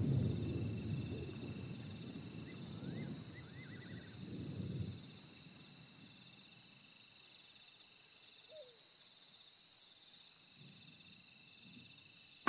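Night insects such as crickets chirring steadily in a high, pulsing chorus. A low rumble of fading thunder dies away over the first five seconds, leaving the insects alone and faint.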